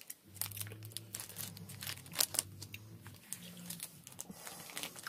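Plastic candy cane wrapper crinkling and tearing as it is handled and opened, a run of irregular crackles, with a low hum for about the first three seconds.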